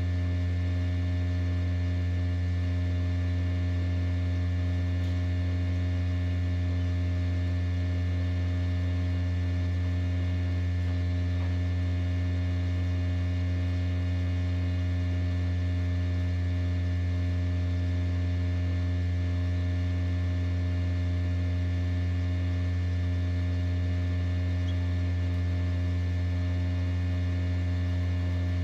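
Steady low electrical hum of an egg incubator running, with a stack of fainter steady tones above it.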